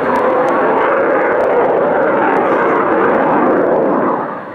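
Loud jet engine noise from a Saab Gripen fighter's single Volvo RM12 turbofan as it flies past, dropping off about four seconds in.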